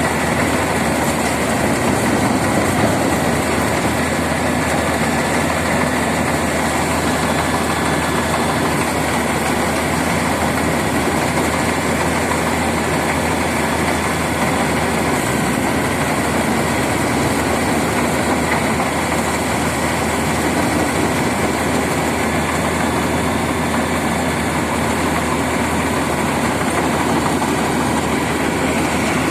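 Combine harvester running steadily, its engine hum under the continuous noise of the machinery working.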